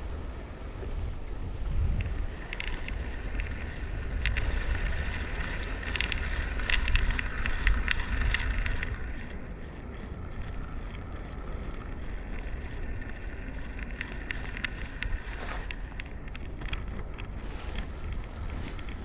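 Wind rumbling on the microphone of a GoPro Hero 8 as it slides along a stretched jute twine line. A scratchy ticking from the mount rubbing along the twine runs through the first half and returns in scattered ticks later.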